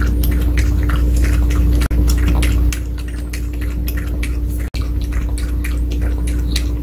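Pomeranian lapping water from a bowl: quick wet laps, about four or five a second.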